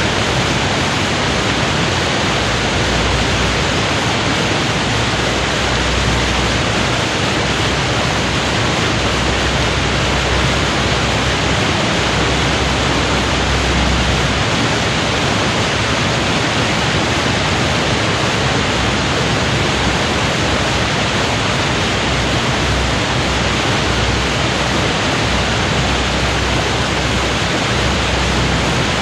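Water pouring over a weir in full flood: a loud, steady rush with a low rumble underneath that swells and fades.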